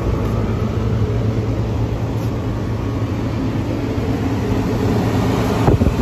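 Carrier rooftop package air-conditioning unit running: a steady low hum under the rush of its fan. A single knock sounds near the end.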